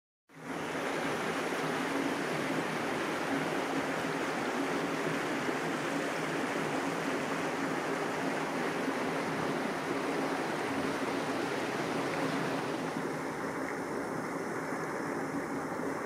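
A steady, even rushing noise; no bird calls stand out.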